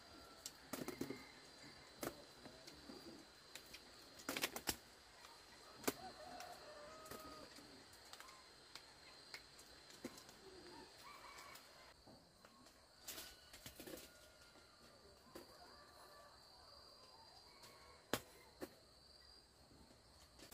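Quiet outdoor ambience with a scattering of short clicks and knocks, faint bird calls and a steady faint high-pitched tone.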